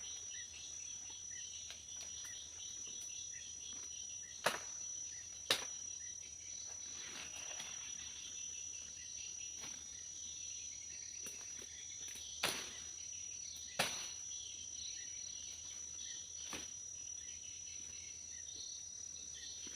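Steady chorus of insects with a constant high whine, broken by a few sharp knocks: two about four and five seconds in, two more around twelve and fourteen seconds, and a fainter one near the end.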